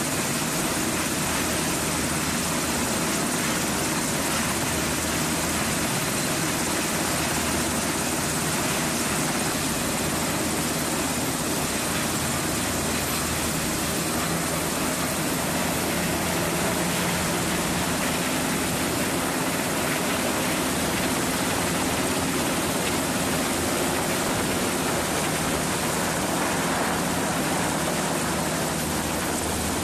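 US Navy MH-60S Sea Hawk helicopter running on a ship's flight deck: steady whine and rush of its twin turboshaft engines and turning rotors as it lifts off and climbs away.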